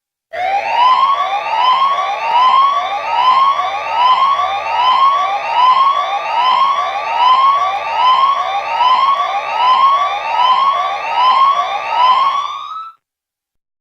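Electronic alarm sounding a steady series of rising, siren-like sweeps, about three every two seconds. It starts just after the beginning and cuts off suddenly near the end.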